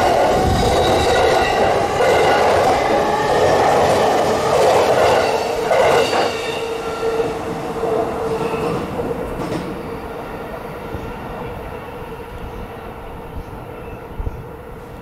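JR East E233-0 series electric train with Mitsubishi IGBT-VVVF traction inverters pulling away from the platform: the inverter and traction motors whine in several steady tones over wheel and rail rumble. The sound fades as the train draws away, with a few light wheel clicks over the rail joints near the end.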